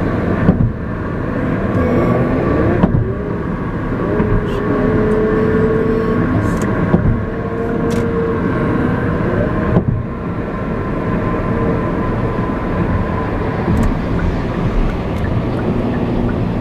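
A car driving, with steady engine and road noise heard from inside the cabin.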